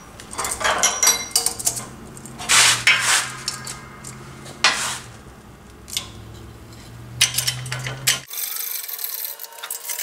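Steel parts clanking and scraping as a differential carrier, a new tapered side bearing, an old bearing race and a pry bar are handled and set up on a hydraulic shop press, over a low steady hum. Near the end the sound cuts abruptly to a fast, even ticking.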